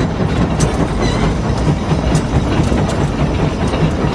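Case 150 steam traction engine working under load pulling a plow, its exhaust chuffing in a steady beat of about two strokes a second over a low rumble.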